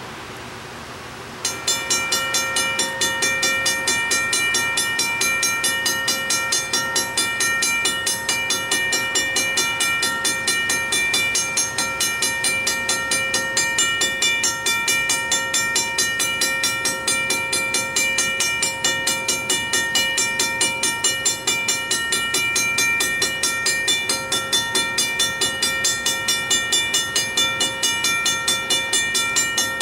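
Railroad grade-crossing bell starting to ring about a second and a half in, then clanging on in rapid, even strokes as the crossing signals warn of an approaching freight train.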